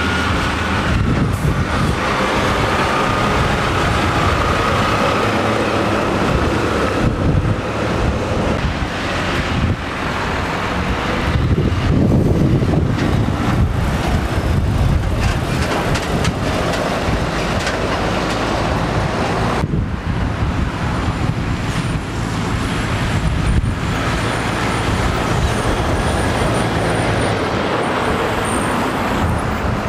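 Heavy diesel trucks passing close by at road speed, engines rumbling with tyre noise: a three-axle tipper truck, then a tractor unit pulling a side-lifter trailer loaded with a shipping container. The sound is loudest about halfway through and lighter car traffic follows.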